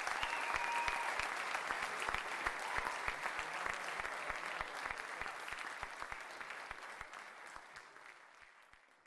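Crowd applauding, a dense patter of clapping that fades out over the last few seconds.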